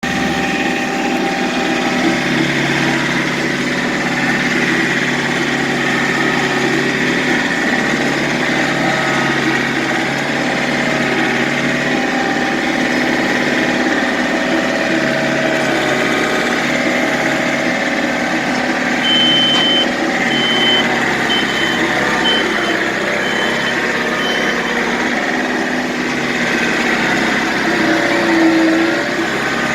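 John Deere 110 TLB backhoe's diesel engine running steadily, its pitch dipping now and then as the hydraulics take load. About twenty seconds in, a run of short high beeps sounds for a few seconds.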